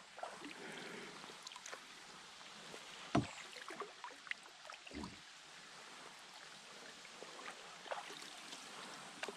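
Canoe being paddled on calm water: faint dripping and small splashes from the paddle strokes, with two dull knocks about three and five seconds in, the first the loudest.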